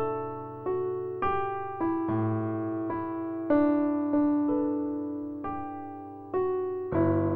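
Background piano music: slow single notes and chords, each struck and left to fade.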